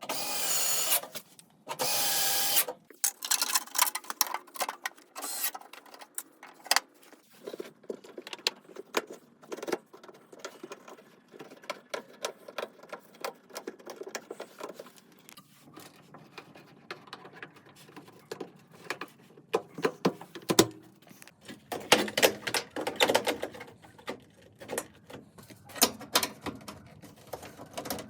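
Work on a washing machine: an irregular run of clicks and knocks from tools and metal parts, with a few short loud bursts in the first few seconds.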